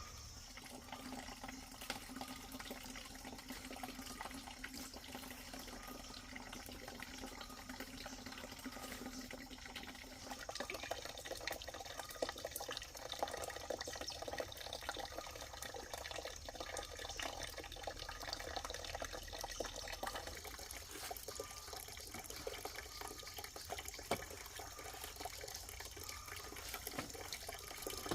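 Water running and splashing, with many small clicks and knocks, changing in character about ten and twenty seconds in.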